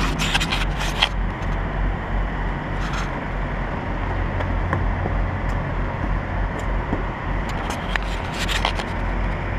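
A diesel engine idling steadily, a low even hum. A few brief clicks and scrapes come in the first second and again near the end.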